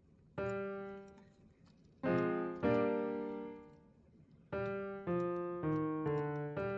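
Piano chords from a software piano instrument in BandLab. A single chord rings and fades, then two more are struck, then a quicker run of shorter chords at about two a second.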